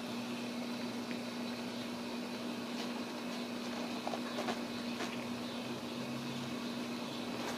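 A steady hum over a faint even hiss, with a few soft ticks about four to five seconds in.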